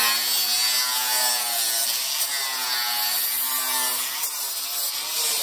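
Angle grinder cutting into the metal lower bodywork of a van, throwing sparks: a steady, loud motor whine over a harsh hiss, its pitch dipping and recovering slightly as the disc bites.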